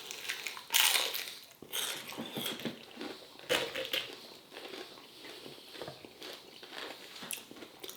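A person biting and chewing chicken wings, with a few sharp crisp bursts in the first four seconds, then softer chewing.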